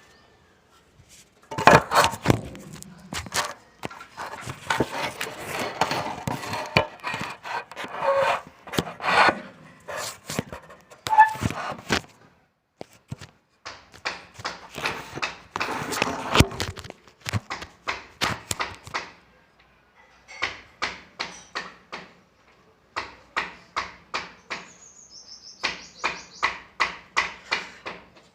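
Hand tools working wood: irregular knocks, clatter and scraping, then from about two-thirds of the way in a steady run of even back-and-forth strokes, about three a second.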